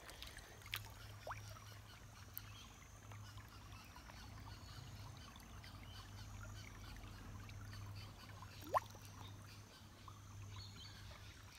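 Faint water sloshing and trickling as an eel-tailed catfish is held in the shallow creek by hand and released, over a low steady hum. A few light clicks, and a short rising chirp about nine seconds in.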